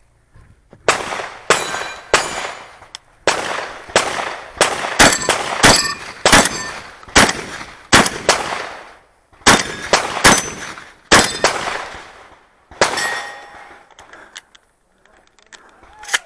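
Shotgun fired in a rapid, uneven string of about sixteen blasts at steel plate targets, some shots followed by a brief metallic ring from the struck steel. The shots come in clusters, with a short gap near the end before the last few.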